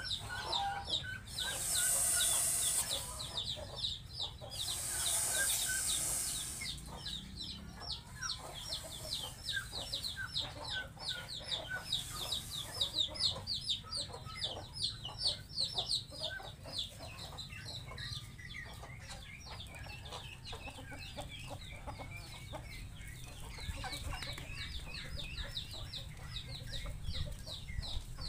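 Chickens calling, with a dense, rapid stream of short high peeps and clucks throughout. Three loud bursts of hiss come in the first few seconds.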